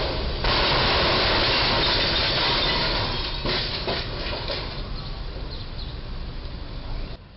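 A box truck's cargo box hitting and scraping along a low steel bridge: loud metal crunching and grinding, with a few sharp clatters about three and a half to four and a half seconds in, then dying down.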